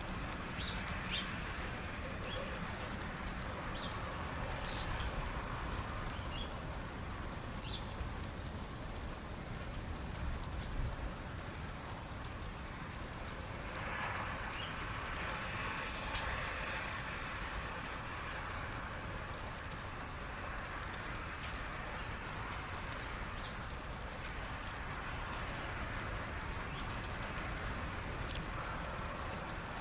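Small songbirds at a feeder giving short, high-pitched chirps in quick little series, with a few sharp ticks, over a steady background hiss. A faint rushing sound swells and fades near the middle.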